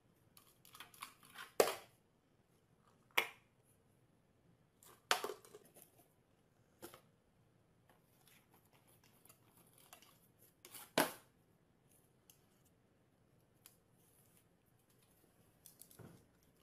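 Light knocks and scrapes of small objects on a glass table top as a small dog paws and nudges a tin can and a cardboard box, with faint scratching and rustling between. The sharpest knocks come about one and a half seconds in and about eleven seconds in.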